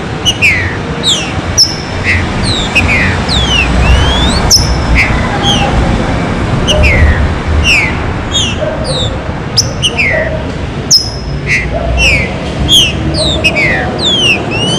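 Green-winged saltator (trinca-ferro) singing: a fast run of short, clear whistled notes, most sliding down in pitch, with a few sharp clicks, over a low background rumble.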